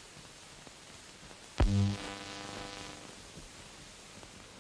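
Steady film-soundtrack hiss, with one sudden low musical tone about a second and a half in that starts loud and fades away over about a second.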